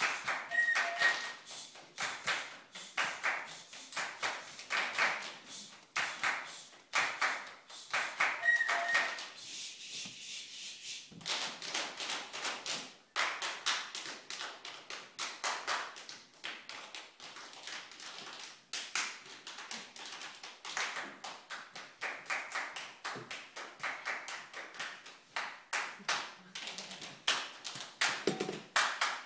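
Drum band performing body percussion without instruments: a group clapping and striking their bodies in tight rhythmic patterns, a dense run of sharp claps and taps that thins briefly about ten seconds in.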